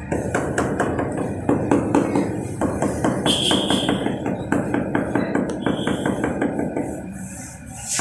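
Quick light taps of a hammer's wooden handle on a ceramic wall tile, several a second, bedding the tile into soft cement mortar. The tapping eases off near the end.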